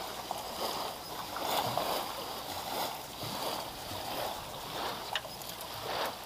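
Water sloshing and lapping against a small boat's hull in irregular swishes, with one light knock about five seconds in.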